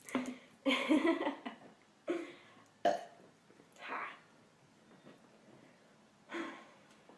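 A woman burping, full of fizzy soda. There is a long, loud burp about a second in, then several shorter ones, with a short "ha" near the middle.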